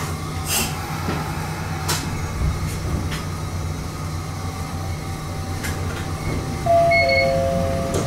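Toyama Chiho Railway 14760-series electric train running, heard from on board: a steady low hum of the running gear with a few sharp clicks over the rails. Near the end it gets louder and a steady whine of a few tones comes in.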